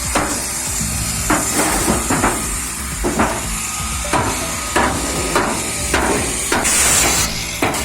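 Repeated hammer blows: about a dozen sharp strikes at an uneven pace, roughly one every half second to second, over a steady low hum.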